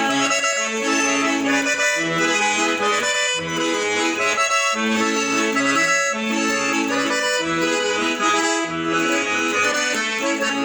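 Instrumental break in a Brazilian sertanejo song: accordion playing the melody and chords over a steady, even rhythm, with no singing.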